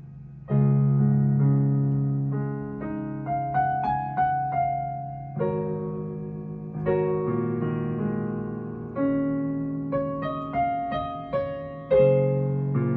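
Digital piano played with both hands in a free improvisation: low chords held under a melody of single notes higher up. A fading chord gives way to a loud new chord about half a second in, and fresh chords come around five and a half seconds, seven seconds and twelve seconds.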